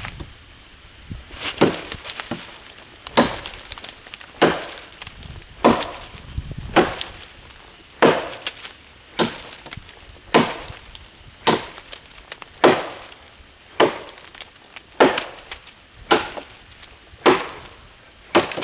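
Kukri chopping into a thick wooden branch: about fifteen sharp blows, one every second or so, each a hard knock of the blade biting into wood. The last blow near the end cuts the branch through.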